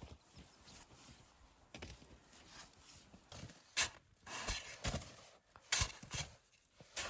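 Irregular knocks and crunches, with a handful of sharp strikes spread through the second half.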